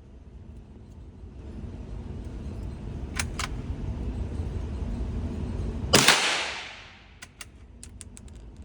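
A single .22 LR rifle shot about six seconds in, its report trailing off over about a second, followed by several quick metallic clicks as the bolt is worked. Before the shot a low rumbling noise builds steadily.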